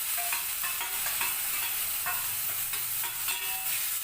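Ground chilli paste and fried onions sizzling in hot oil in a pan as they are stirred, with short scrapes of the spoon against the pan.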